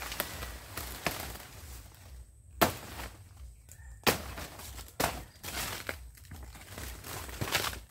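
Large banana leaves and dry leaf litter rustling and crackling as a cut banana plant is pulled down and handled, with four sharp knocks spread through. The second knock is the loudest.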